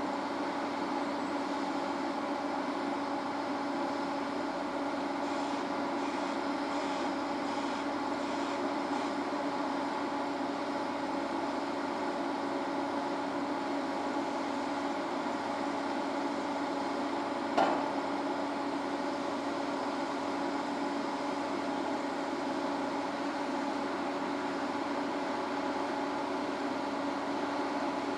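Foundation drilling rig running steadily: a constant machine hum with several steady tones while its toothed drill head is lowered into a steel pile casing. A single sharp clank comes about 17 seconds in.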